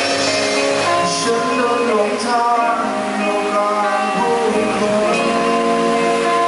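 Live rock band playing: electric guitars, bass and drum kit, with cymbal crashes about one and two seconds in.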